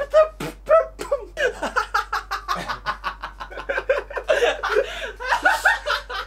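People laughing: a run of quick chuckles and giggles in short, bouncing bursts.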